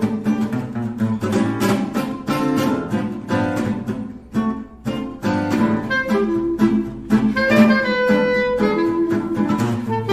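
Instrumental background music led by plucked guitar, with a lower bowed-string line in the second half.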